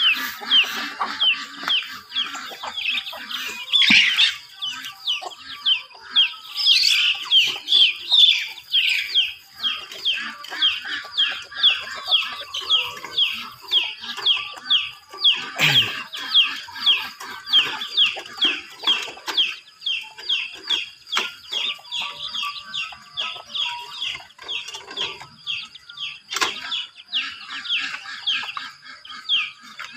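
Chicks peeping over and over, a steady run of short, high, falling peeps about two or three a second, with a few sharp knocks a few seconds apart.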